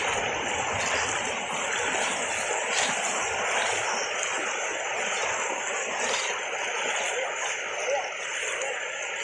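Fast-flowing muddy floodwater rushing steadily over a track, with splashing from people wading through it.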